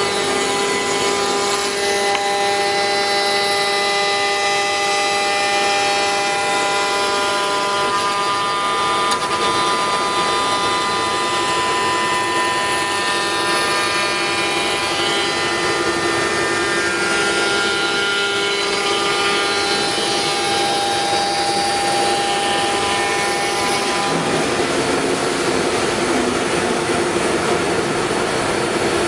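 5-axis CNC router's spindle running at high speed, a steady high whine, while its cutter trims a molded part. About three-quarters of the way through, the whine fades into a rougher, hissing cutting noise.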